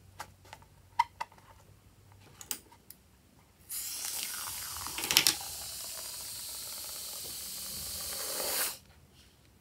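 Foam spraying out of a squeezed balloon through its cut nozzle: a steady hissing spray of about five seconds that sputters loudly about a second after it starts, swells near the end and then cuts off suddenly. A few small sharp clicks come before it.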